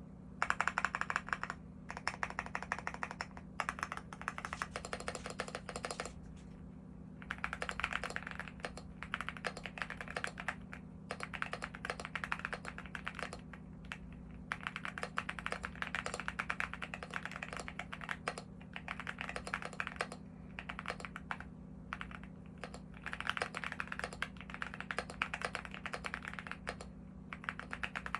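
Typing on a stock Leobog Hi75 mechanical keyboard with Vertex V1 switches and SA-profile keycaps: fast runs of key clicks and clacks in bursts of a few seconds, with brief pauses between them. A steady low hum sits underneath.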